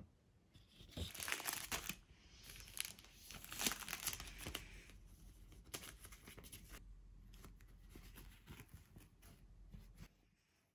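Wrapping being crinkled and torn by hand, in two louder bouts in the first five seconds, then lighter crackles and clicks that fade out near the end.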